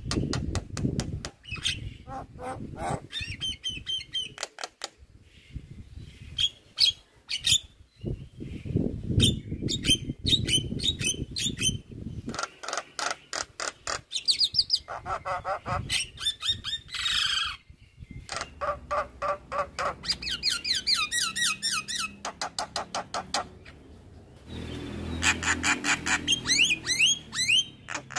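Javan myna singing a long, varied song: quick runs of sharp chattering notes and squawks mixed with rising and falling whistled phrases, broken by short pauses.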